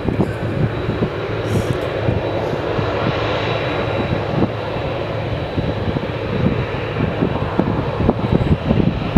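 Boeing 747's jet engines running as it taxis, a steady roar with a thin high-pitched turbine whine held on one note.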